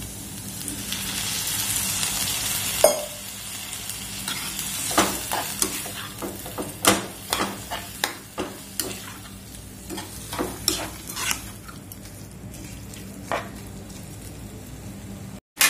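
Water poured into a hot kadhai of frying onion, potato and dried prawns hisses and sizzles for a couple of seconds, ending in a sharp knock. A metal spoon then stirs the mixture, scraping and clinking against the pan again and again.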